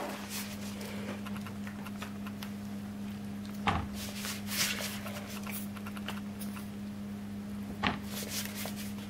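Soft rustling of a piping bag being squeezed as dough is piped into a biscuit mould, with two faint taps, one about a third of the way in and one near the end, over a steady low hum.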